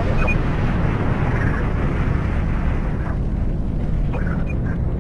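Saturn V rocket lifting off: its first-stage engines make a steady, dense low rumble.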